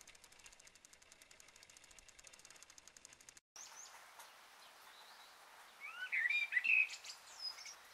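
Faint, rapid, even ticking like a bicycle's freewheel or chain for the first three and a half seconds. It cuts to a quiet outdoor ambience of birds chirping, with a short flurry of chirps a little past the middle.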